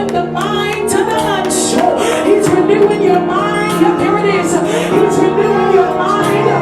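Church worship music: sustained keyboard chords under a voice singing, with a steady beat of cymbal strikes.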